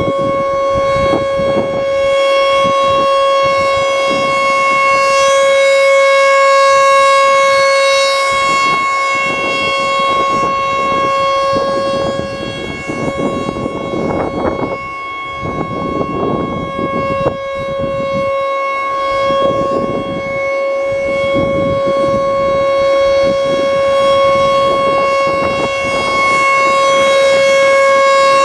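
American Signal Corporation T-128 outdoor warning siren sounding the full-alert signal: one steady, unwavering tone with no rise or fall in pitch, loud, its volume swelling and dipping slowly over several seconds.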